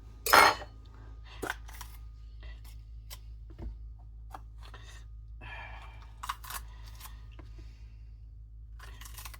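Scattered kitchen handling sounds: a loud, brief noise just after the start, then a few light clicks and knocks and a short rustle around halfway, over a steady low hum.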